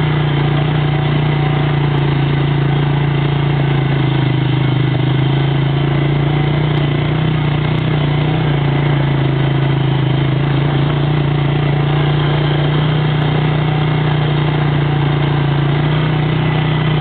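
ATV engine running at a steady low speed while the quad drives along, its pitch holding constant throughout.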